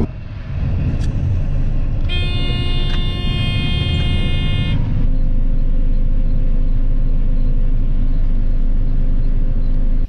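Combine harvester running, heard from inside the cab while it cuts wheat: a steady machinery drone. A horn-like tone sounds for about two and a half seconds before the hum settles.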